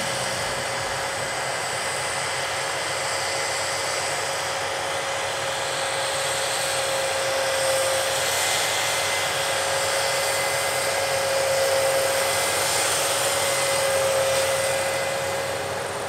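Steady mechanical whirring with a constant high-pitched whine that holds the same pitch throughout.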